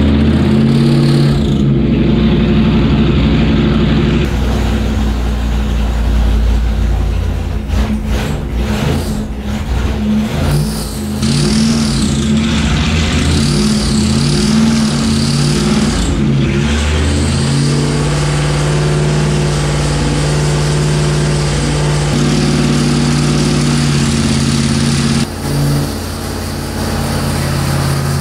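First-generation Chrysler Hemi V8 running on an engine dynamometer, its speed changing several times in the middle, then running steady. It is running noisy with a lot of vibration, which the builder suspects comes from a flywheel not running true on the crank.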